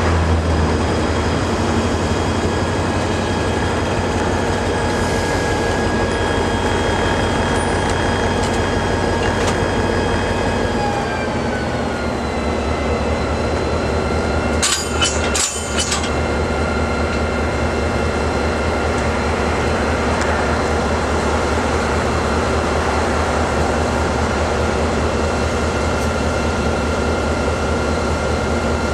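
Diesel locomotive engine running steadily as the locomotive moves slowly up to the passenger car to couple; its pitch drops a little partway through as it throttles down. About halfway, two short sharp noises come less than a second apart.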